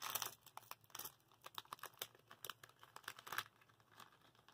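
Fruit Gushers foil snack pouch crinkling and tearing as it is pulled open by hand: a faint run of short crackles that thins out to scattered ticks about three and a half seconds in.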